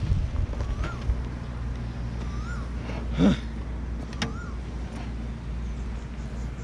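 BMW F 850 GS Adventure's parallel-twin engine idling steadily, with a short louder sound about three seconds in.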